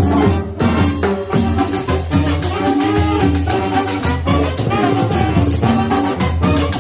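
Brass-band dance music: trumpets and other brass playing a melody over drums with a steady beat.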